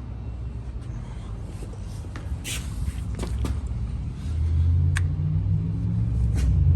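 A Ram 1500's 5.7 L Hemi V8 running, a steady low rumble that gets louder about four seconds in, with five sharp clicks at uneven intervals.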